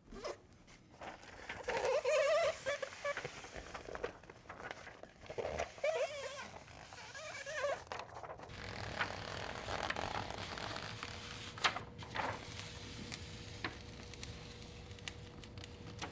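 Blueskin butyl self-adhered flashing being peeled from its release liner and smoothed by hand onto a wood jamb: irregular crinkling, ripping and rubbing, with a few light knocks about twelve seconds in.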